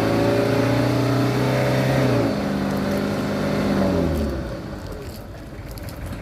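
Diesel truck engine labouring at high revs up a slippery hill. About two seconds in the revs drop and it bogs down under the load, then the engine sound fades away after about four seconds. It is a sign the truck is struggling to make the climb, which an onlooker puts as not strong enough.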